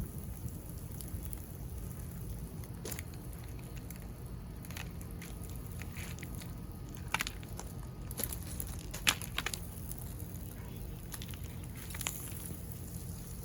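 Melted box-fan plastic boiling on hot rocks: scattered crackles and pops, with the sharpest clicks about 7 and 9 seconds in, over a steady low rumble.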